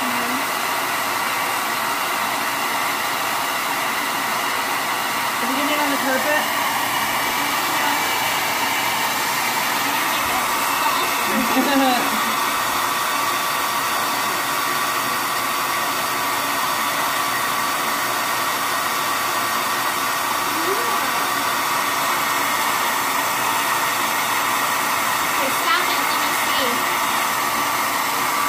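Handheld Revlon hair dryer running steadily on hot air to melt wax crayons: a constant rush of air with a faint steady whine, cut off at the end.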